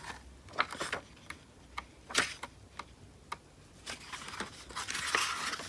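Paper being handled: the pages of a hardcover diary being leafed through, giving scattered light clicks and taps, with a soft rustle of paper near the end.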